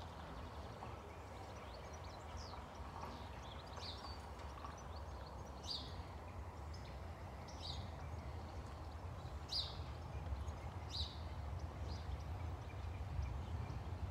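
A bird repeating a short, high chirp every second or two over a low rumble that grows louder near the end.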